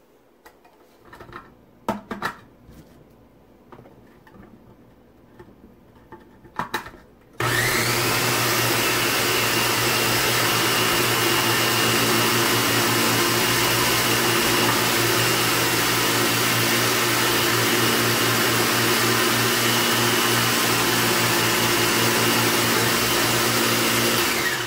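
A few light knocks of cauliflower pieces being gathered, then a small food processor's motor switches on abruptly, its whine rising briefly as it comes up to speed, and runs steadily while cauliflower is pushed down the feed chute and grated. It switches off near the end.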